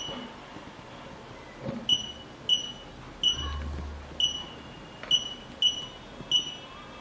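Touch-screen alarm control panel giving short, high key-press beeps, about eight of them at irregular intervals as its screen is tapped, each with a sharp onset and a quickly fading tail. A brief low hum sounds about halfway through.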